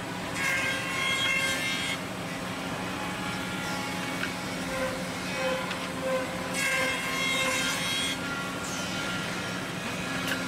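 Woodmaster CNC woodworking machine running, its motors giving a steady hum. Twice, about half a second in and again at about six and a half seconds, a high whine cuts in for about a second and a half as the heads work the wooden part.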